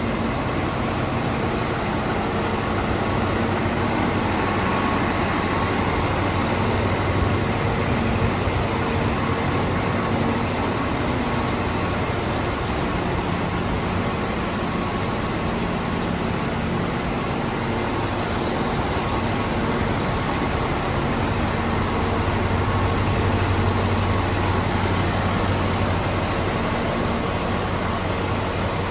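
Scania R420's turbocharged diesel engine idling steadily.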